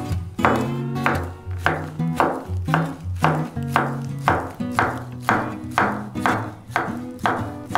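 Chef's knife slicing through rolled ham and tapping the wooden cutting board in a steady rhythm, about two cuts a second, over background acoustic guitar music.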